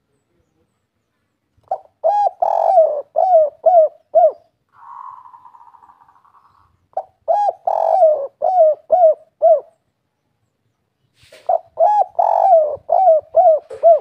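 A spotted dove (tekukur) singing its 'kuk 3' cooing song three times, each phrase a run of six or seven low coos. Between the first two phrases there is a fainter buzzing sound.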